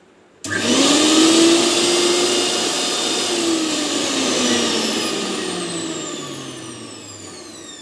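Bosch TrueMixx Pro 1000 W mixer grinder motor switched on about half a second in with a sudden high whine that rises briefly in pitch. It is then switched off and coasts down, its whine falling steadily in pitch and fading.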